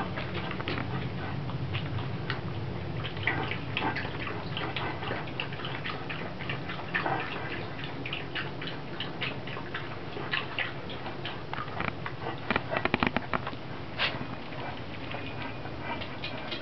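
Small white dog feeding with its head in a stainless steel bowl: irregular clicks and scrapes of its mouth in the bowl, with a quick run of clicks about thirteen seconds in.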